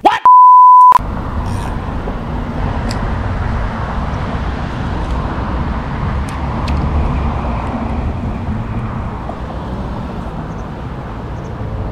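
A loud, single-pitch censor bleep lasting under a second, then steady outdoor roadside noise: road traffic rumble mixed with wind on the microphone.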